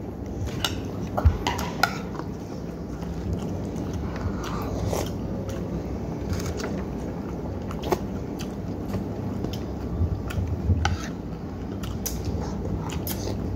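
A spoon clicking and scraping against a plate now and then while eating rice, with chewing in between.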